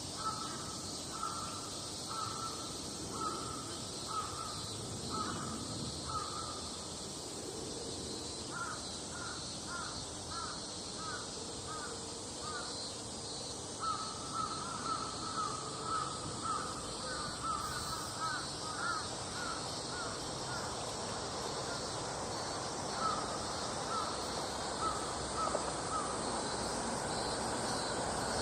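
Crows cawing in several bouts of short repeated calls, some runs quick and some slower. A steady high hiss runs underneath.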